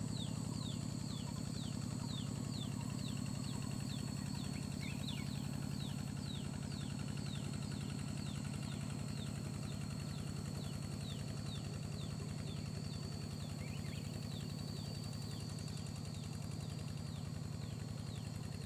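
A bird calling over and over with short, high, falling notes, about two a second, over a steady low hum and a thin, steady high whine.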